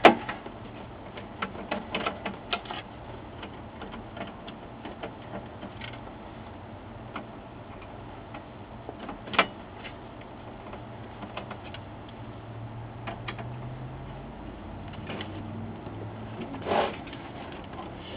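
Screwdriver working screws out of a printer's sheet-metal chassis: scattered light clicks and scrapes of the bit, screws and metal parts being handled. A few sharper clicks stand out near the start, about halfway and near the end.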